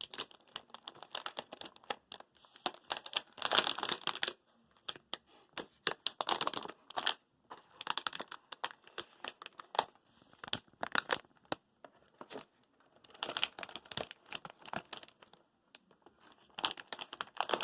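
Plastic packaging crinkling and rustling in repeated bursts of dense crackles, as a motherboard is lifted out of its box and unwrapped.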